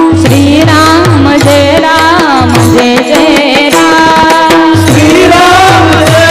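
Devotional bhajan singing accompanied by a sustained keyboard-like drone instrument and a hand drum keeping a steady beat.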